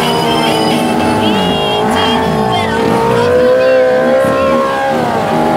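Motorcycle engine held at high revs, running loud and steady with a slowly drifting pitch, with other engines rising and falling in pitch underneath about halfway through.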